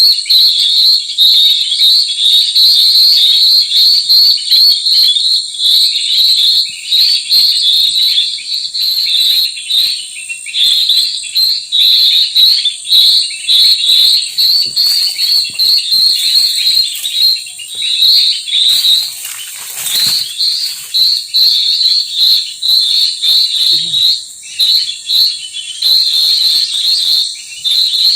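Birds chirping continuously in quick, high-pitched repeated calls over a steady, thin high-pitched insect drone. A brief rustling noise comes a little after two-thirds of the way through.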